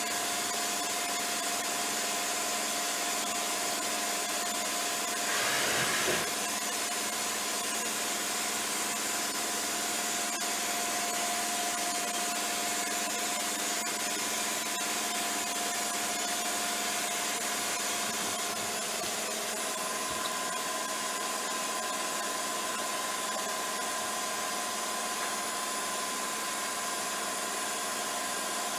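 Hardinge GX-1000 CNC vertical machining centre running as its worktable traverses: a steady mechanical hiss with a held whining tone. A second, higher tone joins about twenty seconds in. About five seconds in there is a brief, louder rush of noise.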